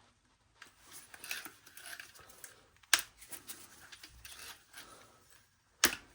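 Old rubber tire being pulled off a Roomba i7 drive wheel by hand: rubbing and scraping of the rubber, with two sharp snaps, about three seconds in and again near the end.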